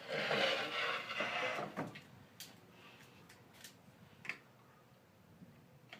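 A piece of plywood being slid and scraped across a work surface for about two seconds, then a few light knocks as it is handled and set in place.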